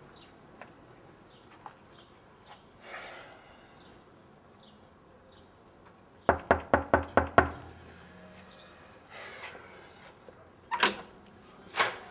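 Knuckles rapping on a wooden front door, a quick run of about seven knocks. Near the end come two sharp clicks as the door's latch and handle are worked and the door is opened.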